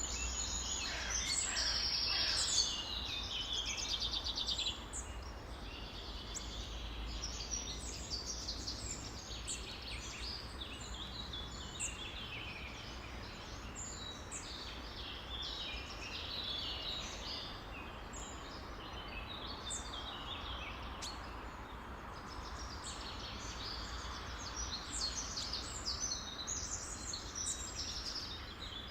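Many songbirds chirping and singing at once, a dense chorus of overlapping short calls and trills, loudest in the first few seconds, over a steady low rumble.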